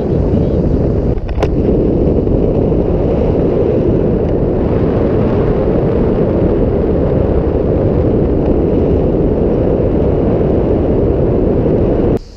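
Wind rushing hard over the microphone of a pole-held camera during a tandem paraglider flight, a loud, steady buffeting. There is a brief click about a second and a half in, and the noise drops off sharply near the end.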